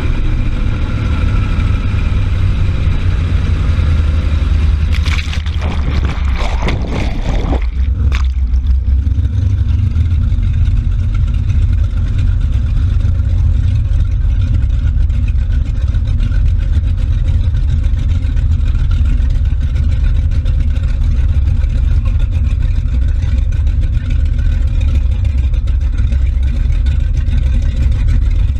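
Motorboat under way at speed: a steady low engine drone mixed with rushing, churning water from the wake, heard from just above the water at the stern. A few sharp splashes of spray come through about five to eight seconds in.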